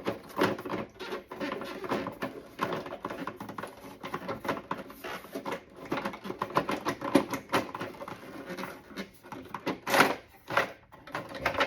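Hard plastic toy parts being handled, a rapid, uneven run of small clicks and knocks, with a few louder knocks near the end.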